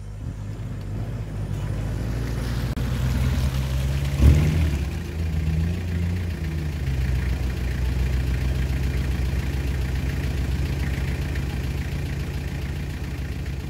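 Mitsubishi Pajero MKII's turbodiesel engine pulling under load as the 4x4 climbs a steep rutted dirt trail, with one sharp thump about four seconds in.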